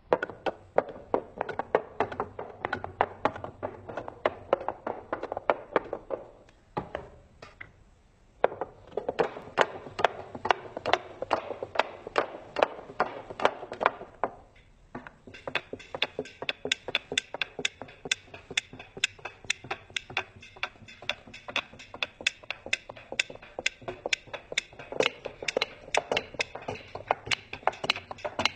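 Wooden toy clacking: quick, irregular wooden knocks several times a second, with a brief pause about seven seconds in.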